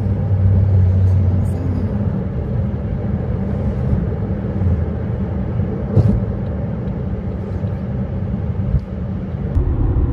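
A car driving steadily along a highway: an even low rumble of engine and tyres on the road, with one brief knock about six seconds in.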